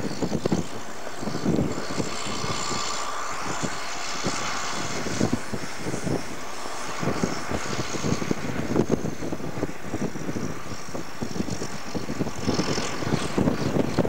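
Ford TW-35 tractor's six-cylinder turbo diesel running steadily under heavy load, pulling an 8-furrow semi-mounted plough through the soil.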